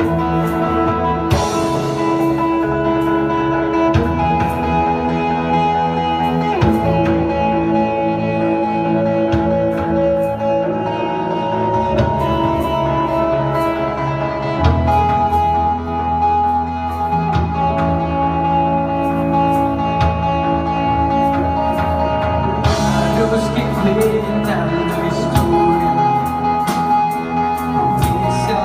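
Live worship band playing: electric guitar, keyboards with long held chords, and drum kit with cymbal strikes.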